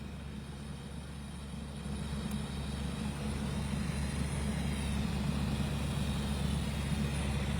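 Steady low engine rumble, growing gradually louder from about two seconds in.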